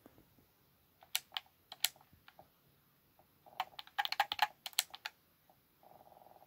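Sharp clicks and taps in irregular clusters, a few about a second in and a quicker run from three and a half to five seconds in. A steady buzz starts near the end.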